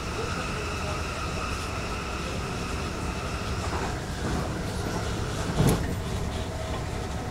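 Cabin running sound of a DB Class 422 electric multiple unit: steady wheel-on-rail rumble under the tonal whine of its Bombardier MITRAC IGBT inverter and traction motors. The whine fades about halfway through, with a tone falling in pitch, and a single sharp knock comes about five and a half seconds in.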